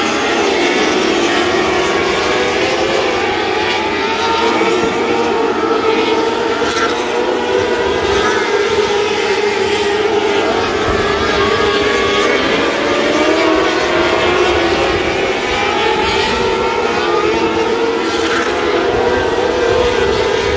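A field of 600cc micro sprint cars racing, many motorcycle-derived engines running at high revs together. Their overlapping pitches waver up and down as the cars lap.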